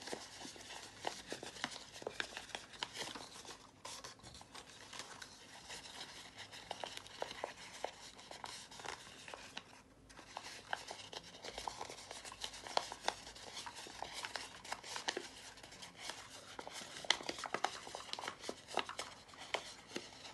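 A paper pleated into a zigzag ring crackling and rustling as hands squeeze and sharpen its creases, fold after fold, making many small irregular crackles.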